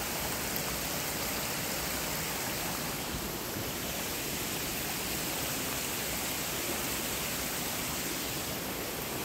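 Niagara River rapids rushing steadily: an even, unbroken wash of white water.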